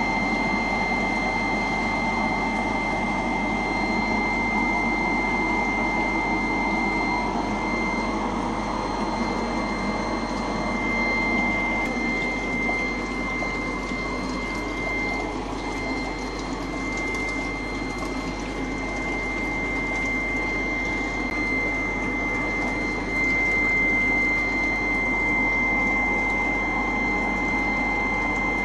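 Aquarium air pump and filter running: a steady hum with a constant high whine, a little louder for a few seconds near the end.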